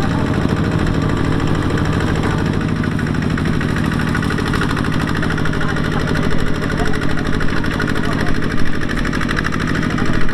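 Single-cylinder diesel engine of a Kubota ZT155 walking tractor running steadily with a rapid, even beat.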